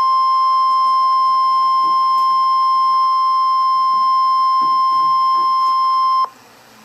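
Weather-radio emergency alert tone: one steady, loud, high beep near 1,050 Hz, the warning alarm tone that signals a tornado warning is about to be read. It holds for about six seconds and then cuts off abruptly.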